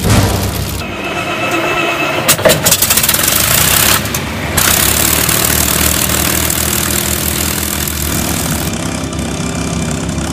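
P-51D Mustang's Packard Merlin V12 engine starting: it fires unevenly about two to three seconds in, then settles into a steady idle with the propeller turning.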